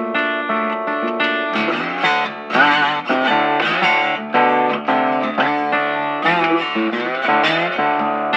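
Background guitar music: a melody of quick plucked notes, some of them bent.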